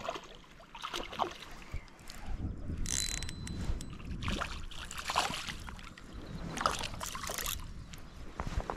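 A hooked smallmouth bass splashing and thrashing at the water's surface as it is reeled toward the bank, in several short bursts of splashing between about three and seven and a half seconds in.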